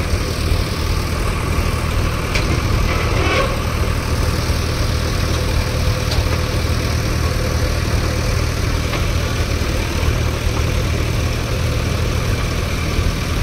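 JCB backhoe loader's diesel engine running steadily, with a few faint knocks.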